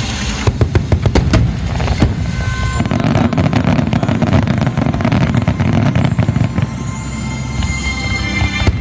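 Festival fireworks going off: a quick run of sharp bangs, then a dense crackling barrage over a low rumble.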